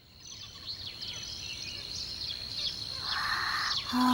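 Countryside ambience fading in: many short bird chirps over a steady high tone, with a brief hiss about three seconds in.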